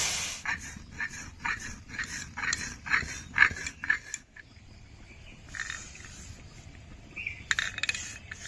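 Pot of fish curry sizzling as the cumin tempering goes in, the sizzle dying away almost at once. A run of short, sharp pops and splutters follows for about four seconds, then scattered fainter ones.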